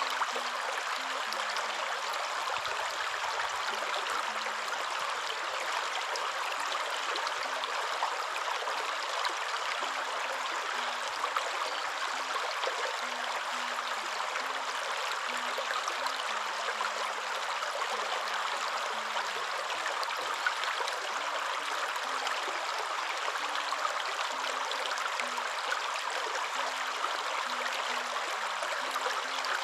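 Waterfall: a steady, even rush of falling water with no pauses or changes, with a very faint low wavering tone underneath.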